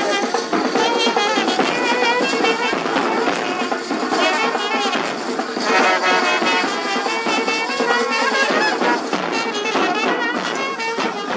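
A brass band playing a tune together: trumpets and larger brass horns over the beat of a big bass drum.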